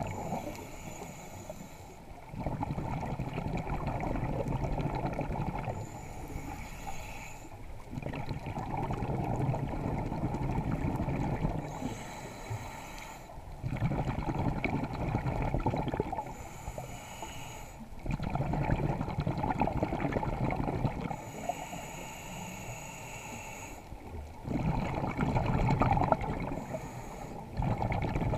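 Scuba breathing through a demand regulator underwater in a slow, even cycle of about six breaths. Each breath is a short, thin, high-pitched hiss on the inhale, then a longer, louder rush of exhaled bubbles.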